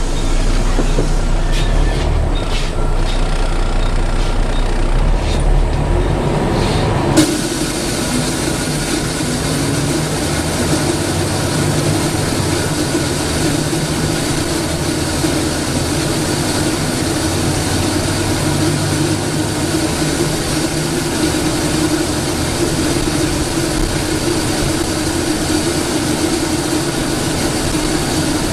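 Volvo B7TL bus's diesel engine heard from on board, running low and steady; about seven seconds in a loud rushing, hoover-like suction noise cuts in abruptly and runs on steadily.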